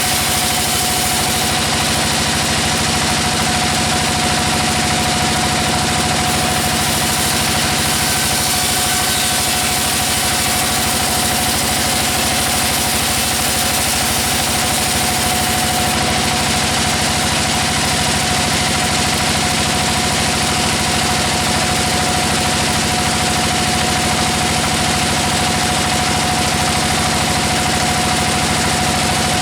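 Sawmill machinery running steadily, a constant engine-like drone with a high, even whine held throughout.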